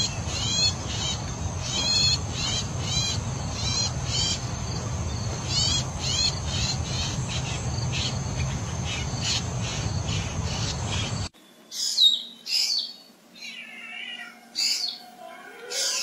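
Long-tailed shrike calling: short, high notes repeated several times a second over a steady low background rumble. About eleven seconds in, the sound cuts off sharply, and sparser, sharper bird calls with quick pitch glides follow.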